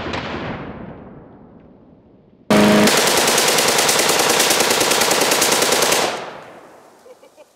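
A small lawn mower engine running, fading out over the first couple of seconds. Then a full-auto AK-47 fires one continuous burst of about three and a half seconds, a full 30-round magazine, which stops abruptly and echoes away.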